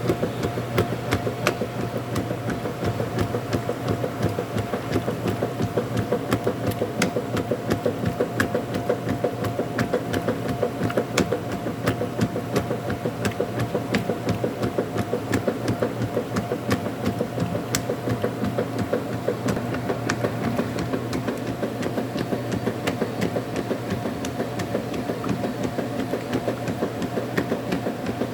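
Washing machine running: a steady motor hum with frequent small, irregular clicks and rattles.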